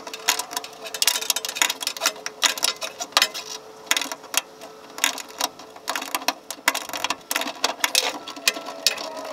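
Hand ratchet wrench clicking in quick runs with short pauses as a bolt is worked loose.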